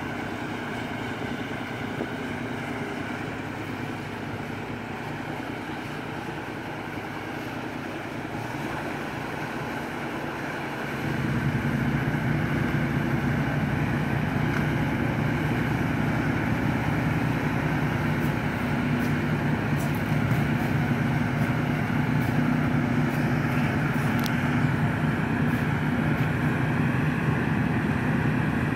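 Large truck engine idling steadily, its low running sound becoming suddenly louder and heavier about eleven seconds in. A few faint clicks later on.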